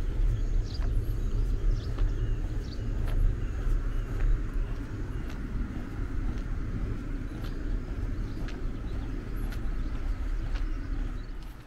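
Wind rumbling on the microphone outdoors, unsteady and low, with a few faint high bird chirps in the first few seconds.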